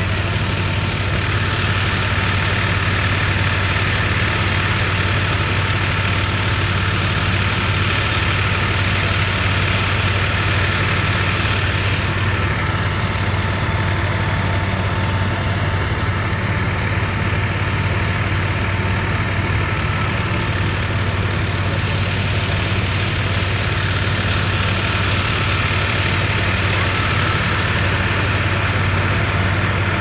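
A steady, unchanging engine drone with a low hum.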